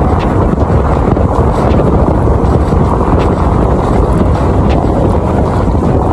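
Strong wind buffeting the microphone: a loud, steady rumbling noise with no clear pitch.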